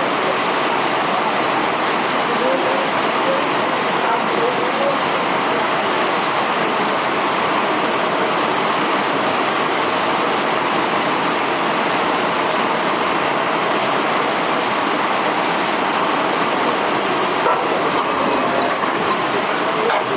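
Torrential rain pouring down in a steady, even rushing noise that does not let up.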